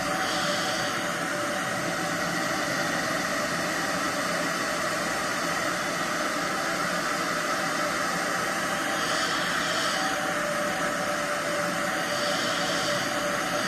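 Handheld hair dryer running steadily, blowing on a wig's lace front to dry the lace-melting spray: an even rush of air over a steady motor hum.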